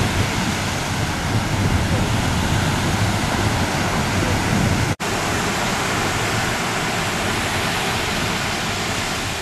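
Steady rushing noise of wind and water on open sea, with the sound cutting out for an instant about five seconds in.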